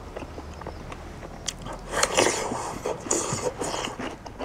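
A person chewing a mouthful of pork and rice, with many small wet mouth clicks and two louder bouts of chewing about two and three seconds in.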